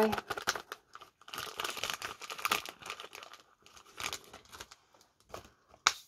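Crinkling and rustling of a packet being handled, with scattered light clicks and one sharp click near the end.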